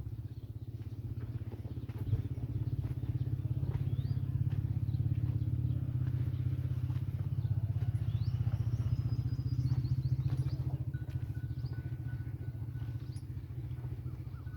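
A low-pitched engine running steadily with a fast, even throb, swelling slightly about two-thirds of the way through. Faint high chirps sound over it.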